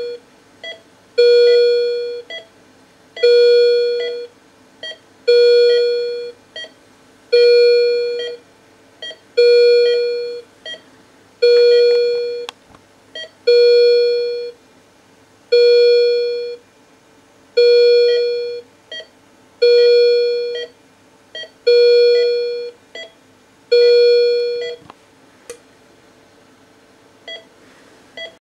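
Philips M3 patient monitor sounding its yellow SpO2 HIGH alarm: a tone of about a second, repeating every two seconds, with a short blip between tones. Near the end it stops, just after a click, as the alarms are suspended.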